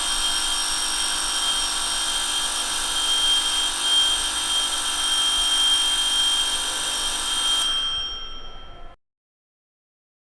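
Electric school bell ringing continuously as a steady metallic ring for about eight seconds, then stopping and dying away over about a second.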